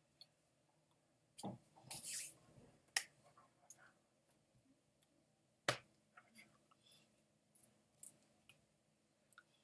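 A few sharp clicks and taps with a short hiss, in a quiet small room; the loudest clicks come about a second and a half in, at three seconds and just before six seconds.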